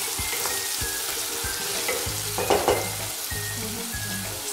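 Chopped green capsicum sizzling as it fries in butter and oil in a kadai, with a wooden spatula stirring it.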